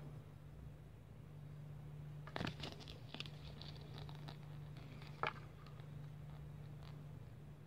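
Pages of a small paper user manual being handled and turned: a rustle of a page turn about two and a half seconds in, a few lighter crinkles, and a sharp tap near five seconds, over a faint steady low hum.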